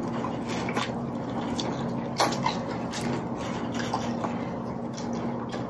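Close-up wet eating sounds of lobster tails in garlic butter sauce being chewed, with a few sharp clicks over a steady low hum.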